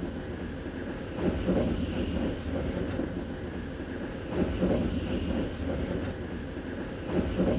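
Arlanda Express electric train running, heard from inside a carriage: a steady low rumble with faint clicks here and there.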